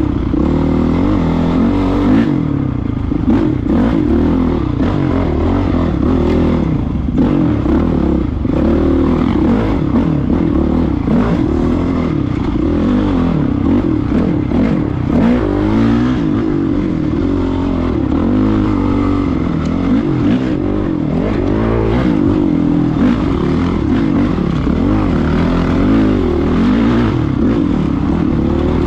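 Dirt bike engine under way on a rough trail, its revs rising and falling again and again with the throttle. Frequent knocks and clatter run through it.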